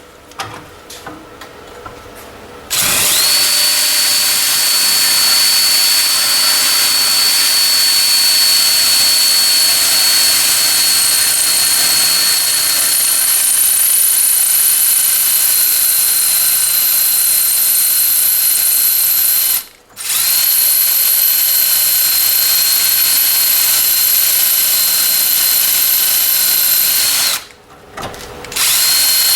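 Electric drill boring out a hole through a garage door, starting about three seconds in and running steadily with a high motor whine. It stops briefly about two-thirds of the way through and again near the end, starting up again each time.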